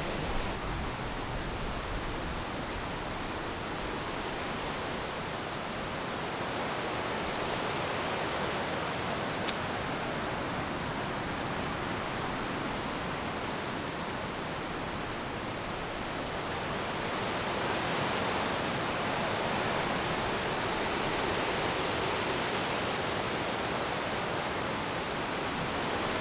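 Wind rushing through the tops of tall eucalyptus trees, a steady noise that swells a little in the second half. A single light click sounds about ten seconds in.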